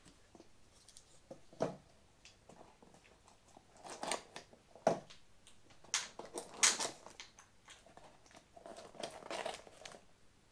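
Handling noise from a satellite speaker wall-mount bracket and its packaging: scattered clicks and knocks with short crinkling rustles, and a longer stretch of rustling near the end.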